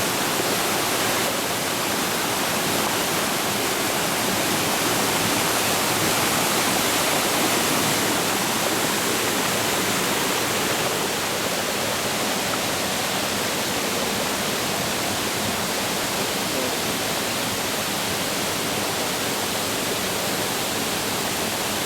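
Waterfall rushing: a steady, loud roar of falling water.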